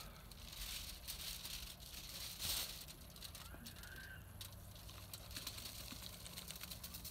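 Faint handling sounds: aluminium foil crinkling and a lemon pepper seasoning shaker rattling as it is shaken out over the fish, with a brief louder rustle about two and a half seconds in.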